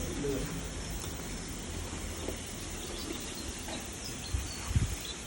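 Steady outdoor background noise with a low rumble, and a few faint clicks near the end.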